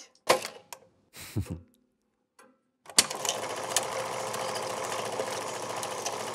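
A few short knocks, then a pause. About three seconds in, a small machine starts with a click and runs with a steady, fast mechanical clatter over a steady hum.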